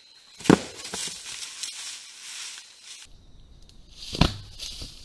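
A gorilla displaying at a mirror in leaf litter. There is a sharp thump about half a second in and another about four seconds in, with rustling and scuffing between them.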